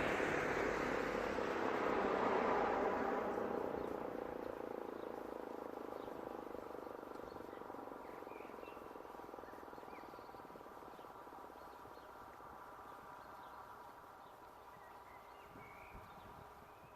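Rosenbauer FS 8 electric motor siren winding down at the end of its test, its wail fading steadily away. Faint bird chirps sound a few times in the second half.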